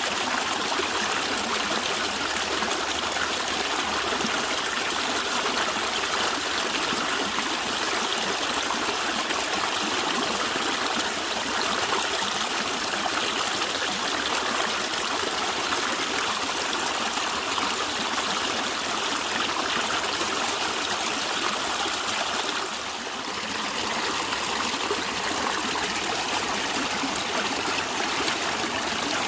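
Natural stream water gurgling and trickling steadily, an even rushing with no pauses, briefly a little softer about three-quarters of the way through.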